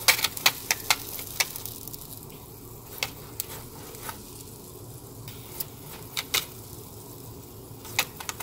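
Sharp, irregular pops and crackles from hot pork belly skin puffing and blistering, a quick run of them in the first second and then scattered single pops, over a steady low hum.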